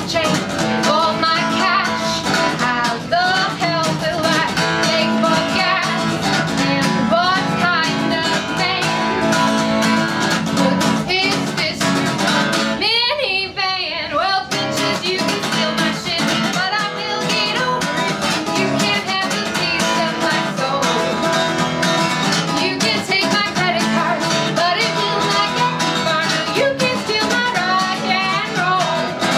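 A woman singing live while strumming an acoustic guitar. The strumming stops for about a second and a half near the middle while the voice carries on, then picks up again.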